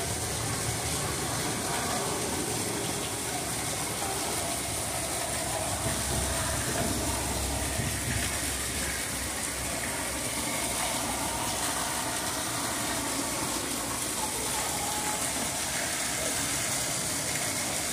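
Steady rushing background noise that holds an even level throughout, with no distinct knocks, calls or other events.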